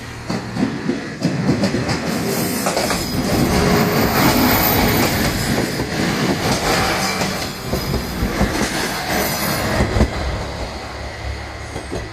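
Three-car Type 1500 diesel railcar set passing slowly over a level crossing: wheels clacking over the rail joints as the cars roll by. A steady low diesel engine hum comes to the fore near the end.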